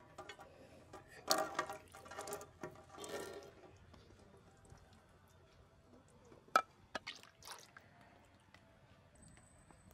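Cooking oil poured out in a few short gurgling bursts, then a few sharp knocks, the first of them the loudest sound.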